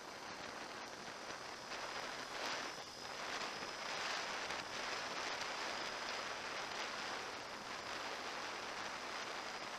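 Creek water running with a steady rushing sound that grows louder over the first few seconds.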